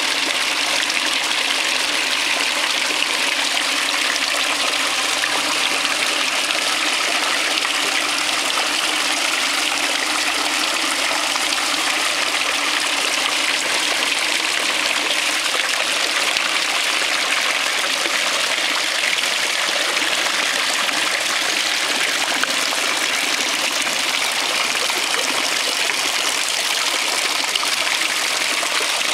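Fountain water jetting and splashing steadily into a shallow metal basin: many small sprays and spouts pouring from sculpted metal paint tubes, a continuous splashing without breaks.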